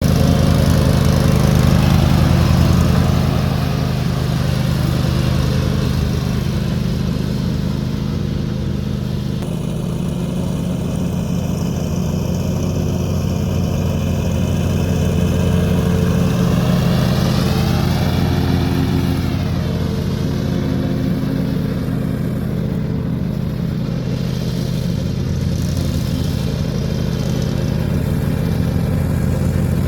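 Cub Cadet XT2 riding lawn mower's engine running steadily at a constant speed, with a higher whine that wavers in pitch about two-thirds of the way through.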